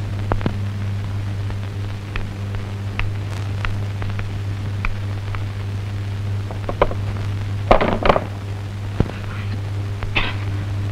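Steady low hum with crackle and scattered sharp clicks. A short burst of noisy rustling comes about eight seconds in.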